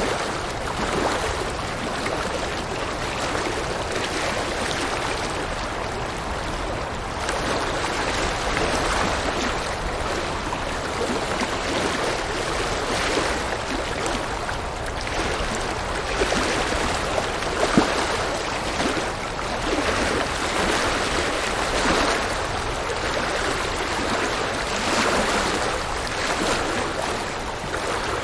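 River water flowing over rocks, a steady rushing with bubbling splashes, and one brief sharper splash about 18 seconds in.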